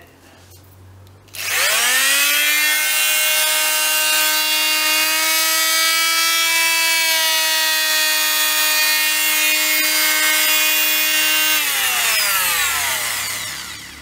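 Bosch PMF 190E oscillating multitool, fitted with a cutting blade, running free with no load. It starts about a second in, its whine rising quickly to a steady pitch, holds for about ten seconds, then falls in pitch and dies away as the motor winds down after being switched off near the end.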